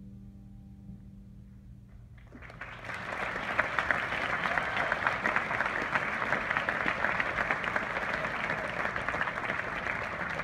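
The last piano chord rings and fades, then audience applause breaks out about two and a half seconds in and carries on steadily.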